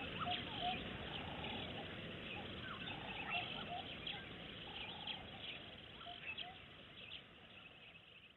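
Birds chirping and calling in the bush: many short quick chirps, and a short steady call repeated every second or two. The sound fades down near the end.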